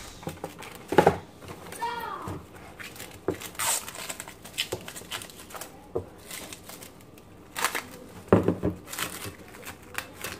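Plastic cling wrap crinkling and crackling as it is stretched over a bowl and pressed down around the rim. There are two louder thumps, one about a second in and one near the end.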